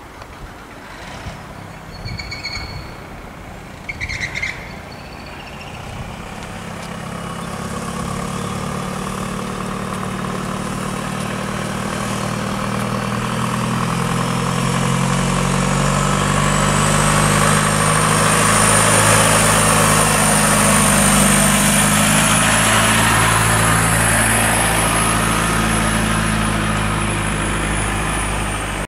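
An engine running, getting steadily louder over about twenty seconds, with a low steady drone and a thin high whine that climbs in pitch, then cutting off abruptly at the end. A few short high chirps are heard in the first few seconds.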